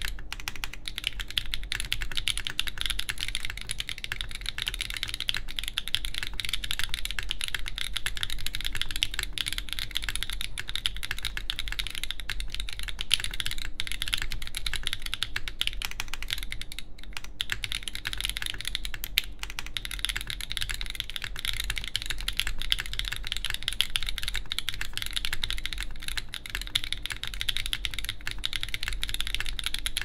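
Continuous typing on a Mode Loop TKL mechanical keyboard with stock-lubed Obscura switches, a carbon fiber plate and GMK keycaps: a rapid, steady stream of keystrokes, broken once by a brief pause a little past the middle.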